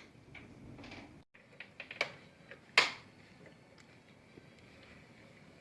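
A scatter of sharp clicks and taps, the loudest a little under three seconds in, over a faint steady hiss. The sound cuts out completely for a moment about a second in.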